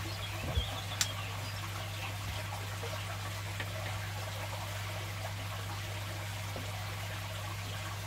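A steady low hum under a faint, even trickling hiss, with a soft knock about half a second in and a sharp click about a second in.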